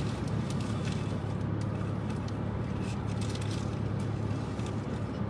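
Steady low hum of a car's interior with the engine running, with a few faint light ticks over it.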